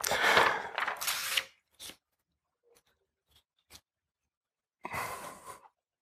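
Sheets of paper rustling as they are handled and shuffled, in two bursts, with a few light clicks and taps between.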